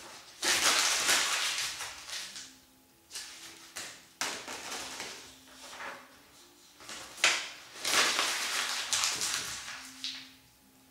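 A sheet of white paper being crumpled and squeezed into a ball by hand: crackling rustles in four bursts, the longest near the start and from about seven to ten seconds in.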